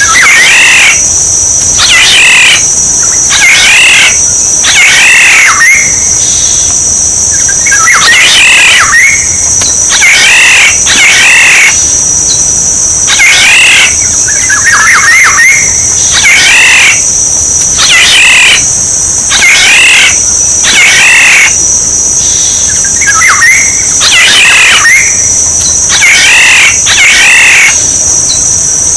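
Oriole calls played as a bird-decoy lure track: loud, short fluting whistled phrases, each about a second long, repeated over and over with brief gaps. Underneath runs a steady high-pitched buzz.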